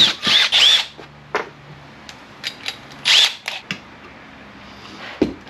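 Power drill run in short trigger bursts while drilling a pilot hole, the motor whine rising and falling with each squeeze: two bursts in the first second and another about three seconds in, with small clicks and knocks between.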